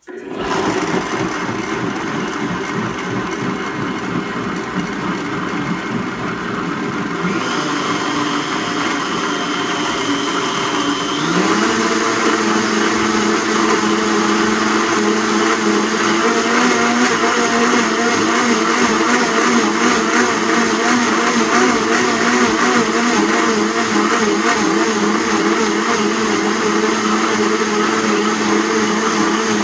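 Blendtec 1475-watt blender running its smoothie program on a jar of smoothie. The motor steps up in speed about seven seconds in and again about eleven seconds in, getting louder, then runs steadily at high speed.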